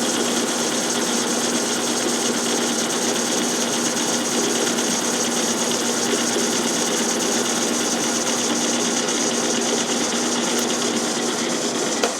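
Metal lathe running steadily under power feed, boring out a motorcycle tappet guide block by about five thousandths of an inch to fit an oversized tappet. It makes a constant machine hum with a steady tone through it.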